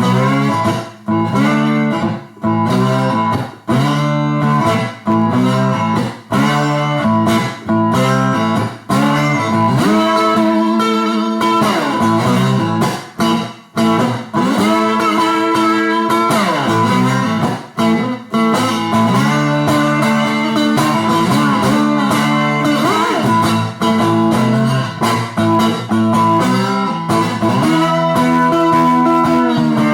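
Three-string cigar box guitar tuned to open A (A, E, A), played through an amplifier with overdrive and a little reverb for a dirty tone: rhythmic plucked riffs, with notes gliding up and down in pitch through the middle stretch.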